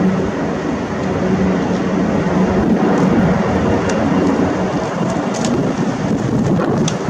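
Airbus A330-300 jet engines running loud and steady, heard as a broad even rumble.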